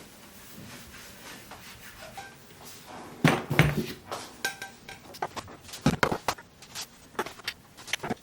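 Dishes and cutlery clattering and clinking: quiet at first, then a string of sharp knocks and clinks from about three seconds in, some with a short ring.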